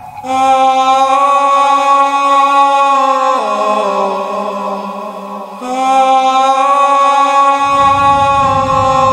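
Breakdown in a guaracha/tribal house mix: long held chant-like vocal notes carry the music, stepping down in pitch about three seconds in and back up a little before six seconds, with the beat and bass missing until they come back near the end.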